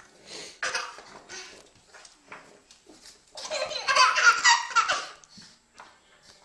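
Baby laughing in short bursts, then a long, loud fit of high-pitched laughter about halfway through.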